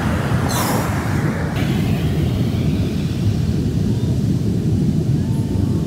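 Big surf breaking on the beach: a steady low rumble, mixed with wind on the microphone. A short hiss starts about half a second in and cuts off suddenly.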